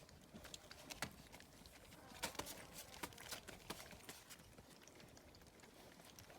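Faint, scattered small clicks and taps of puppies eating their first solid food, with a denser run of taps in the middle.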